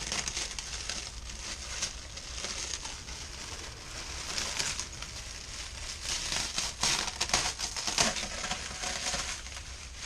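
Plastic packaging crinkling and crackling as it is pulled and torn away, in irregular flurries that grow busier in the second half.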